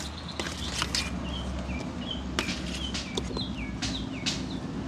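A bird calling over and over with short, high, falling chirps, two or three a second, with a few sharp clicks among them.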